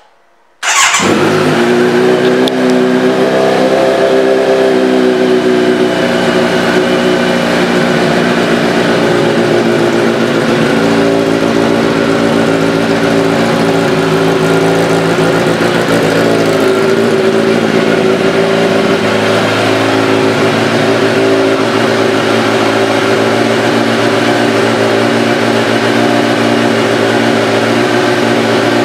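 Kawasaki Z900's inline-four engine, fitted with an M4 slip-on exhaust, starting up about a second in and then idling steadily.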